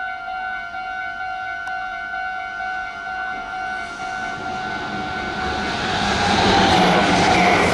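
Japanese railway level-crossing warning bell ringing in a steady repeating two-tone pattern while a train approaches, its rushing noise building to loudest near the end as it passes at speed.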